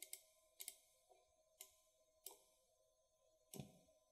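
Near silence with a few faint computer mouse clicks scattered through it, the loudest near the end.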